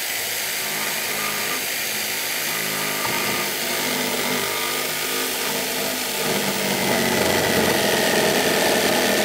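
Jigsaw running steadily as its blade cuts through a cedar deck board, notching it around a post; the cut gets a little louder about two-thirds of the way through.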